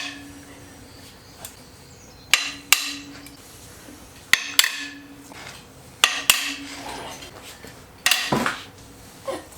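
Hammer blows on metal parts of an engine being torn down: four pairs of sharp strikes about two seconds apart, each followed by a brief low ring, and one lighter strike near the end.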